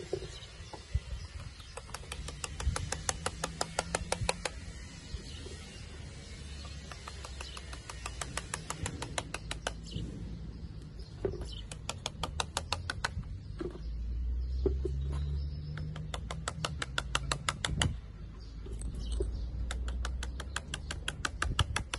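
A bristle paintbrush scrubbed fast back and forth over a concrete curb, in repeated bursts of quick scratchy strokes, about ten a second, working paint evenly into the stone. A low rumble of wind on the microphone swells under it now and then.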